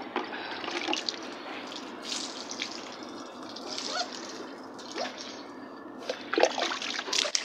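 Water splashing and dripping as a plastic scoop is dipped into a bucket of water and poured over a wet puppy during its bath, with small splashes coming thick and fast near the end.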